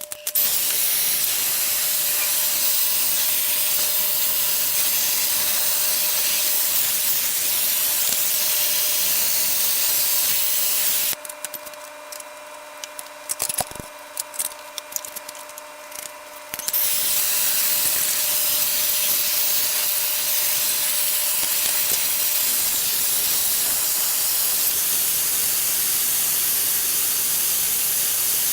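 Plumber's soldering torch burning with a steady hiss as the tub and shower manifold fittings are soldered. The hiss stops about 11 seconds in, a single knock follows, and the hiss starts again about 17 seconds in.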